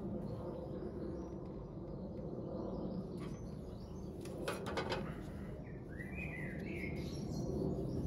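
Soft rubbing of a cloth polishing the faded red paint on a steel bike fork, with a few light knocks around the middle. A bird chirps briefly near the six-second mark.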